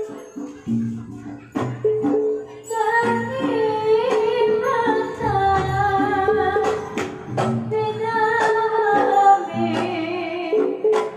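Javanese gamelan music for a barongan and jathilan performance: a woman sings a wavering, ornamented melody over sustained metallophone tones, with sharp drum strokes here and there.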